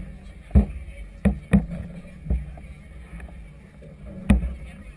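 Choppy harbour water slapping against the hull of a moored floating clubhouse: five irregular thumps over a low steady rumble.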